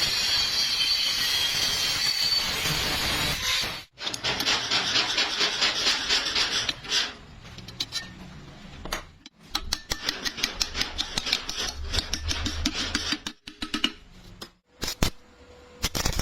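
Stick-welding arc crackling and hissing steadily, cutting off about four seconds in. Then come rapid, rhythmic scraping strokes on the weld in two spells with pauses, ending in a few sharp knocks.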